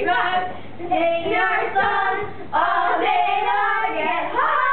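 Young voices singing a repetitive chanted song in short phrases, with brief breaks between them.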